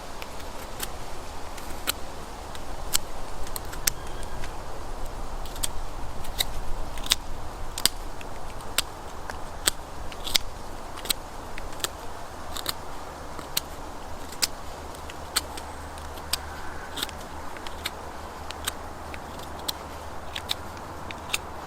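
Swiss Army knife blade whittling a wooden stick to a point: irregular sharp clicks and snaps as the blade bites into the wood, roughly one or two a second, over a steady low rumble.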